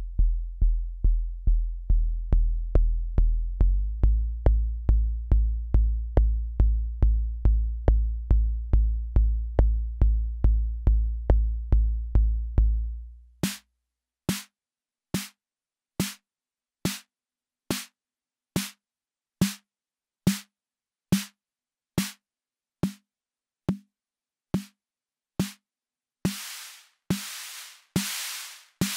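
Akai Rhythm Wolf analog drum machine playing a raw pattern: a deep bass line, stepping up in pitch about four seconds in, under a fast steady ticking. About halfway the bass fades out, leaving one short drum hit repeating a little more than once a second. Near the end a noisier, hissing hit joins it.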